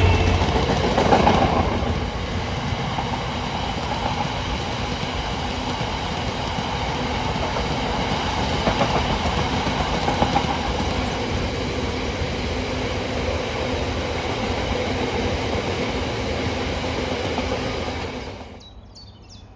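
Freight train wagons rolling past with a steady rumble and clickety-clack of wheels over rail joints. It cuts off suddenly near the end.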